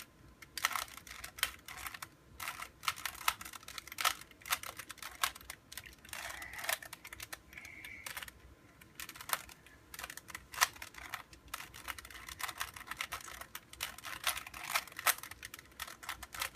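Plastic Rubik's Cube being turned by hand: the layers click and clack in quick, irregular runs with short pauses between them.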